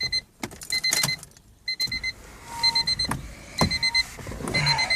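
A 1998 Honda Civic's key-in-ignition reminder beeping about once a second, a buzzy high tone, with clicks and rattles of the key going into the ignition switch.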